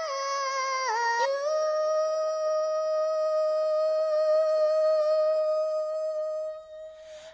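Wordless high singing voice, humming a few quick melodic turns and then holding one long steady note that breaks off near the end.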